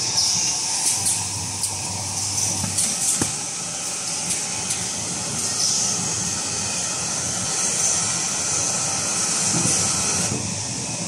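Automatic kitchen towel paper wrapping machine running: a steady mechanical running noise under a high hiss, with a few sharp clicks in the first several seconds.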